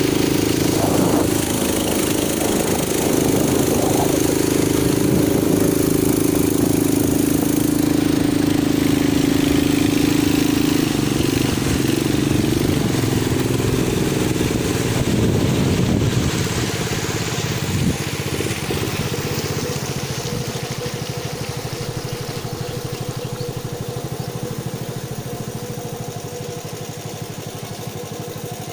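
Long-tail boat engine running steadily under way, then easing off and growing gradually quieter over the second half.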